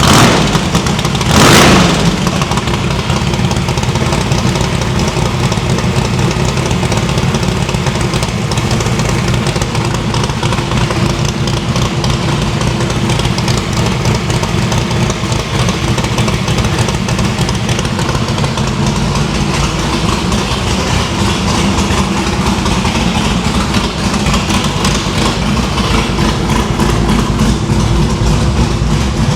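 Small-block Chevy V8 idling steadily on all eight cylinders, with a short, loud burst of noise about a second and a half in. The plug wires are back on all eight cylinders after the engine was run on four to trace a misfire, and it is running noticeably better.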